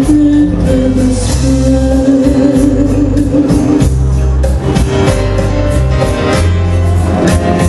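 A woman singing into a microphone, holding long notes over amplified backing music with a steady beat and bass.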